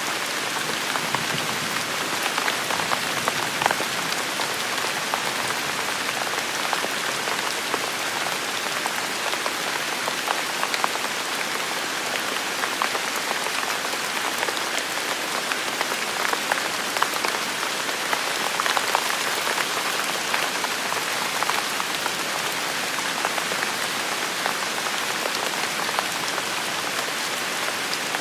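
Steady rain falling on a hard surface, with individual drops ticking through a constant hiss.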